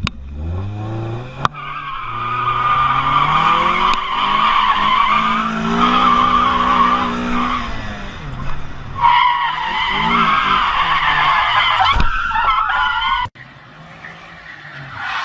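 A car drifting: the engine revs up and is held high while the tyres squeal in a long wavering screech, with a short break about eight and a half seconds in. The sound cuts off suddenly near the end.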